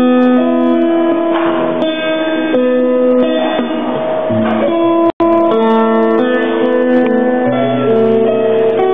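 Steel-string acoustic guitar played live, chords ringing out as the notes change every half second or so. The sound cuts out for an instant about five seconds in.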